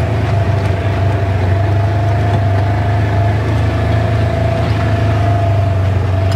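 Polaris Trail S 1000 side-by-side driving slowly along a dirt trail, heard from the seat: its twin-cylinder engine running at a steady low speed with a steady whine over the low hum.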